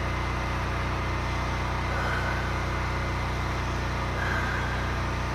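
A generator running steadily: a constant, even engine hum.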